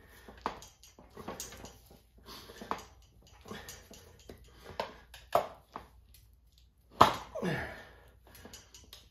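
Steel tire spoons levering the stiff bead of a Dunlop EN91 tire over a dirt-bike rim with a firm mousse inside: uneven scrapes, rubber creaks and sharp clicks of metal against the rim. About seven seconds in there is a sharp knock followed by a short falling squeal.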